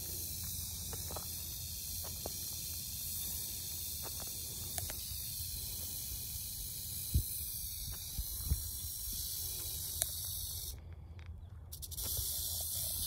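Rattlesnake rattling its tail: a steady high buzz, the snake's defensive warning, that cuts out for about a second near the end and then starts again. Wind rumbles on the microphone, with a few soft knocks.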